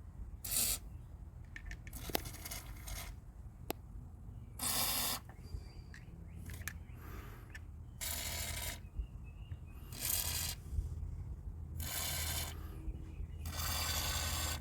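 Hand tools working on metal engine parts: a series of short, uneven scraping strokes with a few light metallic clicks between them.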